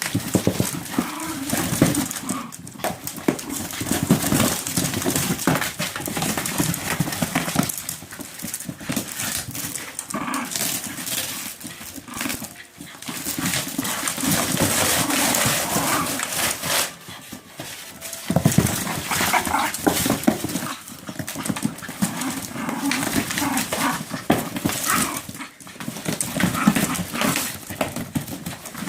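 A dog shredding something with its teeth: ragged ripping and tearing that comes in spells of a few seconds with short pauses between, mixed with the dog's own sounds.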